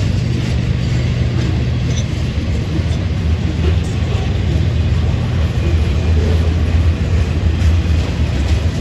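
Freight train diesel locomotive running with a steady low rumble.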